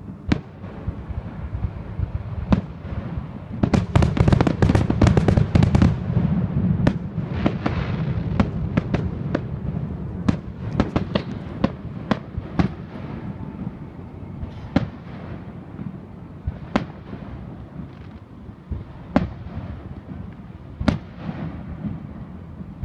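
Aerial fireworks shells bursting. A dense, rapid run of bangs comes about four seconds in and lasts about two seconds, then single bangs follow every second or so.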